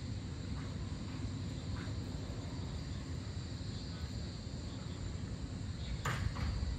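Dusk insect chorus, crickets keeping up a steady high trill, over a low background rumble. A sharp click sounds about six seconds in.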